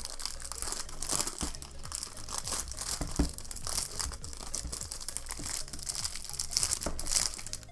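Packaging crinkling and tearing in irregular bursts as a small speedcube box is unwrapped and opened by hand.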